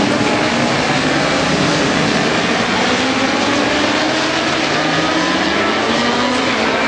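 A pack of World Superbike racing motorcycles passing at full speed, several engines heard at once, their pitches gliding up and down as they go by.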